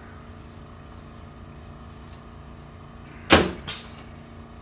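Two sharp cracks less than half a second apart, about three seconds in, from a chiropractic spinal adjustment thrust. A steady low hum runs underneath.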